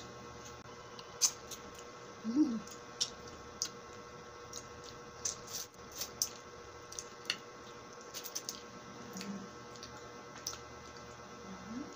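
Close-miked wet sucking on a peeled lemon slice: scattered sharp smacks and squishes from lips and mouth, with three short hums along the way.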